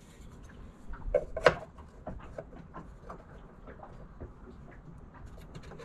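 Small clicks and taps of hands working on wiring at a boat's electrical switch panel, scattered irregularly, with one sharper knock about one and a half seconds in.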